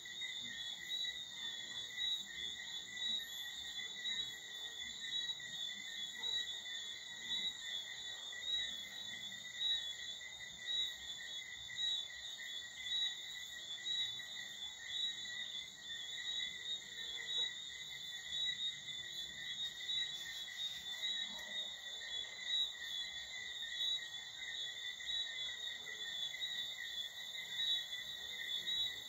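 Night chorus of crickets: a steady high-pitched trilling.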